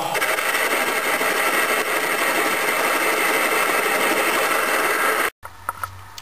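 Small metal lathe running under load, its cutting tool rough-turning a rusty metal bar into a stepped shaft: a steady, dense cutting noise over the drive. The noise cuts off abruptly about five seconds in, leaving a much quieter low hum.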